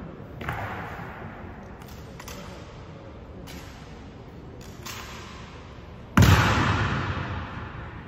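Honour guard drill strikes on the hall's stone floor: a few sharp hits, the loudest about six seconds in, each ringing out in a long echo.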